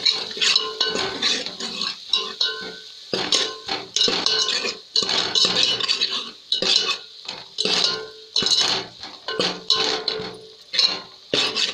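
Steel ladle scraping round the bottom and sides of a steel cooking pot, stirring a wet spice mixture in strokes about once a second, with the pot ringing faintly.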